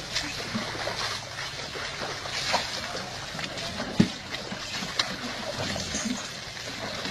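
Water splashing and sloshing in a plastic tub as a baby elephant thrashes about in it, with a hose spraying water in. Two sharp knocks stand out, about four and five seconds in, the first the loudest.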